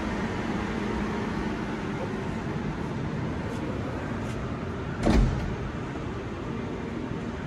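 Sliding guard door of an Emco Turn 365 CNC lathe pulled shut about five seconds in, a short slide ending in a thud, over a steady machine hum.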